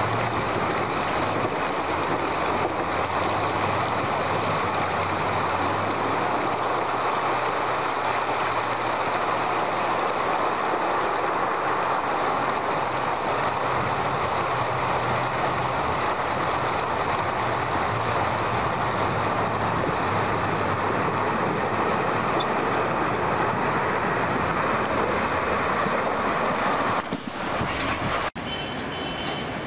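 A heavy off-road truck's engine running as it fords a river, a low steady hum under the constant rush of the river water. Near the end the sound changes abruptly to a closer truck splashing through water.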